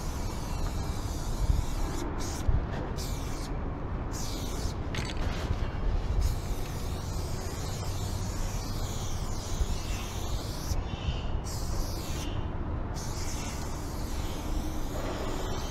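Aerosol spray paint can hissing in repeated bursts as paint is sprayed onto the steel side of a freight car, stopping and starting again several times, over a steady low rumble.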